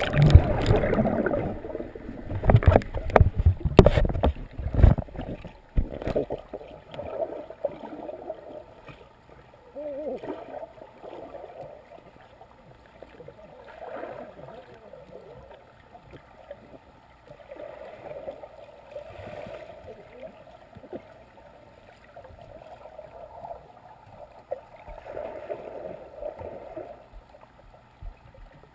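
A GoPro in its waterproof housing going under in a swimming pool: a few seconds of loud splashing and knocks against the housing, then the muffled underwater sound of pool water, a low swelling gurgle that rises and falls every few seconds while the camera rests on the pool floor.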